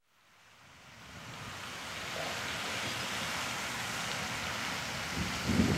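Steady rushing hiss of a lake fountain's spray, fading in from silence over the first two seconds. A low rumble of wind on the microphone builds near the end.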